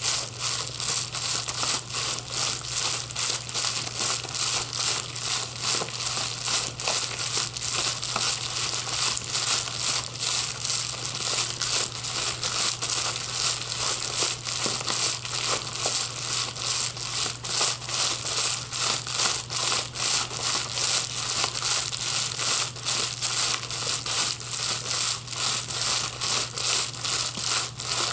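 Plastic wrapping being crumpled and crushed in the hands, a dense, continuous crinkling crackle, over a steady low hum.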